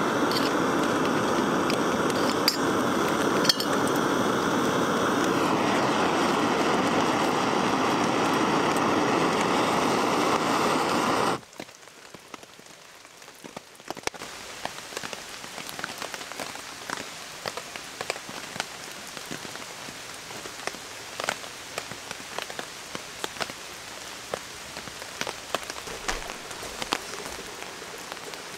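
Small gas-canister camping stove burning with a steady rushing hiss under a pot of water, with a couple of metal clinks from the pot a few seconds in. About eleven seconds in the burner is shut off and the hiss cuts out suddenly. Soon after, steady rain patters with many small drops ticking.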